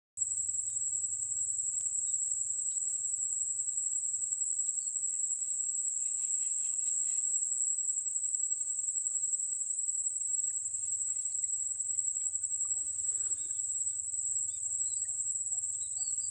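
Insects trilling in one steady, high-pitched drone, with a brief rustle about thirteen seconds in.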